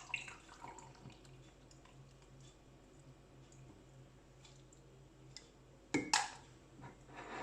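Steeped drink being strained into a cup: faint dripping and trickling of liquid with small ticks. A couple of sharper clinks come about six seconds in and again at the end.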